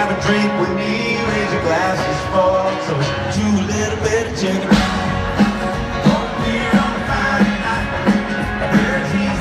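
Live country band playing through a stadium PA, heard from the stands: a man singing over acoustic guitar, with the bass and a steady beat coming in about halfway through.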